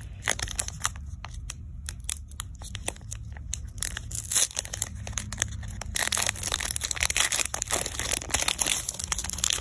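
Foil Pokémon card booster pack being torn open and crinkled by hand: scattered sharp crackles at first, thickening into a dense, continuous crinkle about four seconds in.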